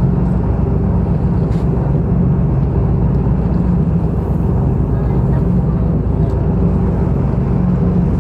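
Boat engine running steadily, heard from on board: an even low drone with a steady hum above it that does not change in pace.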